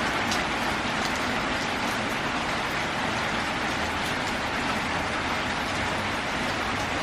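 Steady rain falling on a metal roof, an even hiss with a few sharper drop ticks.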